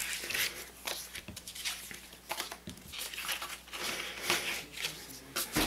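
Card stock being handled on a cutting mat: the cut template and trimmed-off scraps slid and lifted, giving irregular light rustles and scrapes of stiff paper, with a sharper one near the end.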